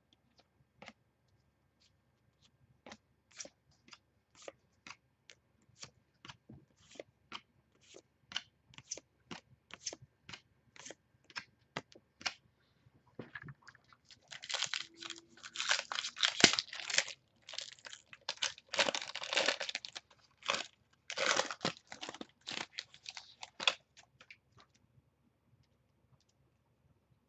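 Trading cards clicking as they are flipped one by one off a stack, about two a second. About fourteen seconds in, a foil baseball card pack wrapper is torn open and crinkled for roughly ten seconds.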